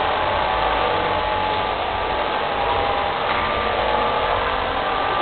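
Steady background din of an indoor car show hall: an even wash of noise with a faint, steady hum running through it.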